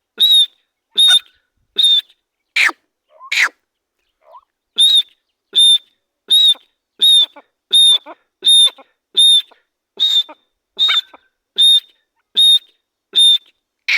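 Teetar (francolin) calling: a long series of short, shrill whistled notes, about one every 0.7 seconds. A little before the middle come two notes that slide downward, then a pause of about a second before the even series resumes.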